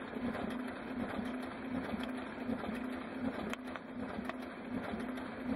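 High-volume printer running and feeding printed pages into its output tray: a steady mechanical whir with a rhythmic pulsing hum and a few sharp clicks.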